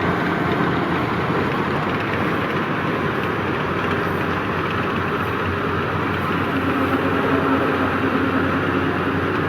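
Yanmar YH850 combine harvester running steadily, a continuous loud machine noise with a low hum; a steady tone joins it about two-thirds of the way through.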